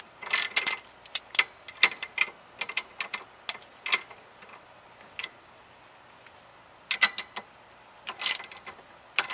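Socket ratchet clicking in short runs as it is swung back between strokes, tightening the bolt of a homemade press that draws a new trailing arm bushing into its bore. The clicking pauses for about two seconds midway, then picks up again.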